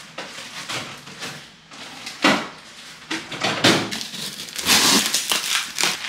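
Plastic packaging and cardboard rustling and crinkling as groceries are handled and pulled out of a box, in irregular bursts. The loudest come about two seconds in and again around four to five seconds in.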